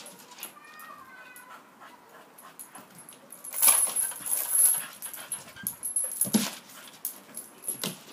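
A dog playing at a hanging rope toy, with short whines early on, a loud rustling stretch about halfway through, and two short sharp sounds near the end.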